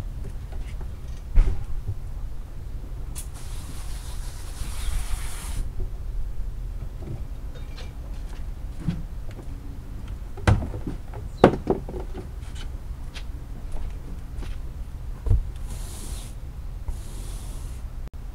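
Outdoor deck cleaning: scattered knocks and taps on wet wooden boards, flip-flop footsteps, and a couple of spells of stiff bristles scrubbing over a low steady rumble.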